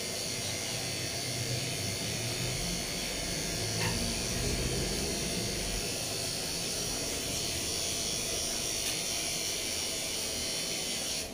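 Corded electric pet clippers running steadily while trimming a dog's face fur, cutting off right at the end.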